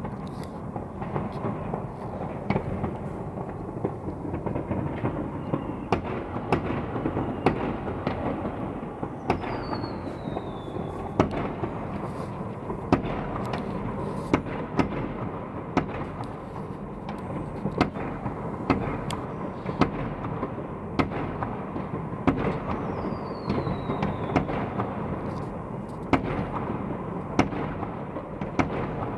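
Fireworks going off all around, heard from high above: a continuous rumble of distant explosions with frequent sharp bangs. Twice a whistling firework sounds with a falling pitch.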